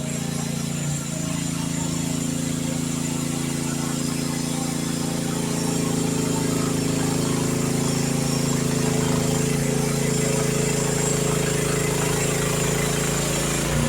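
Youtop YT15 mini excavator's engine running steadily while the machine works, getting a little louder about six seconds in.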